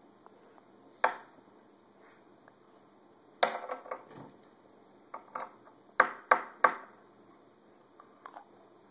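A walnut in its shell knocked against a wooden tabletop in an uneven run of sharp knocks: one about a second in, a cluster around the middle, three loud ones close together about six seconds in, and a couple of light taps near the end.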